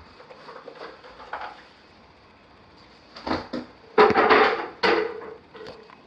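Handling noise: a few knocks and a rattling clatter of objects being moved and brushed against, loudest about four seconds in.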